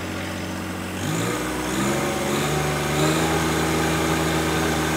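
John Deere 1025R's three-cylinder diesel engine running steadily at just above idle. About a second in it is throttled up, its pitch rising over a couple of seconds to a steady higher speed at PTO RPM.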